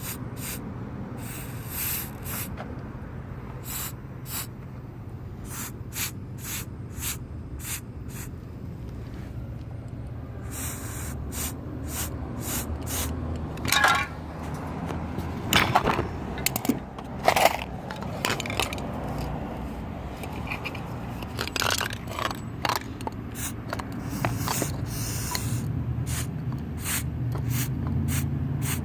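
Aerosol can of paint-and-primer sprayed in many short bursts and a few longer hisses over the railing bolts to protect them. Louder metallic clinks and scrapes come about halfway through.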